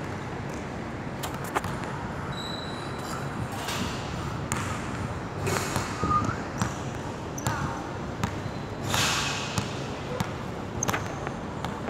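Basketball bouncing on a hardwood gym floor: irregular single thuds every second or so, with indistinct voices in the background.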